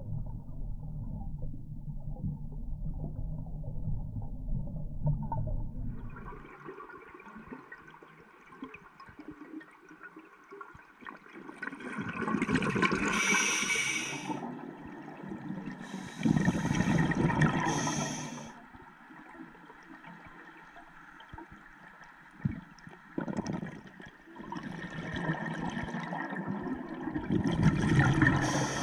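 Scuba regulator exhaust bubbles heard underwater, gurgling in three or four loud bursts a few seconds apart with the diver's breathing, with a quieter hiss between them. For the first six seconds there is only a low muffled rumble.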